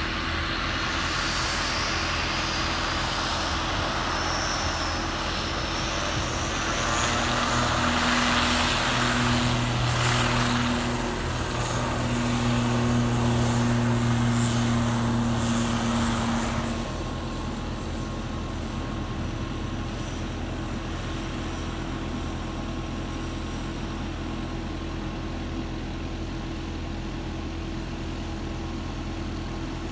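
ATR-72 twin-turboprop airliner's engines and propellers running at high power on the runway, with a steady low propeller hum through the middle, then the sound drops off after about 17 seconds as the aircraft moves away.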